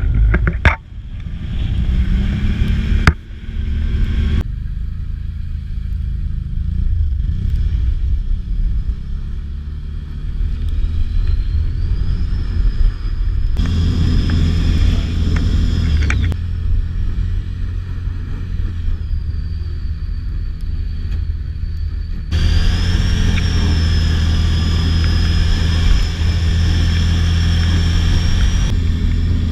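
Can-Am Outlander ATV engine running hard under a heavy low rumble as the quad spins doughnuts on ice, its high whine climbing and dropping with the revs several times. Two sharp knocks about one and three seconds in.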